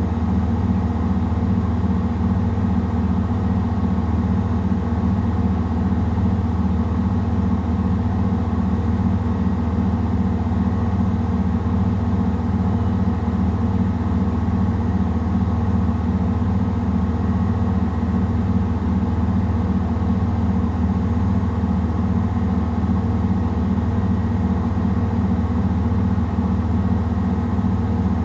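Samsung WW70T4020EE front-loading washing machine on its spin cycle with clothes, the drum and motor spinning at a steady speed: a loud, even hum with a fast, regular pulse.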